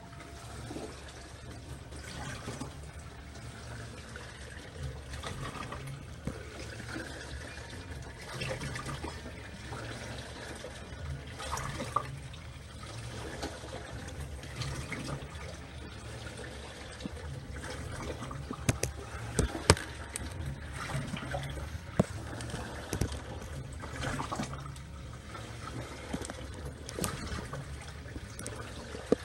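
LG 6.5 kg top-load washing machine running with water splashing and sloshing in the tub over a steady low motor hum, with a few sharp clicks.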